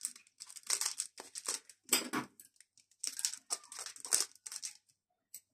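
Clear plastic film crinkling and rustling in short, irregular spells with brief pauses, as fingers unwrap a plastic-wrapped plant cutting.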